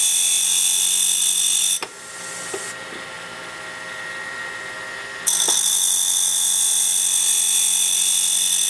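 Grinding wheel of a home-built end mill sharpener grinding the secondary relief on a 3/8-inch end mill flute: a steady high-pitched whine that cuts off with a click about two seconds in and resumes with a click about five seconds in, over a steady low motor hum.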